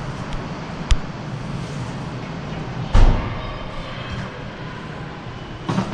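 Metal tools knocking during work on a car's suspension: a sharp click about a second in and a loud knock about three seconds in, with a smaller knock near the end, over a steady low hum.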